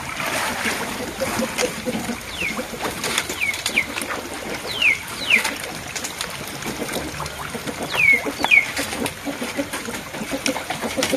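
Shallow pond water splashing and trickling as the men wade and work a fish net. Over it, a bird calls several short falling whistles, mostly in pairs, the loudest about eight seconds in.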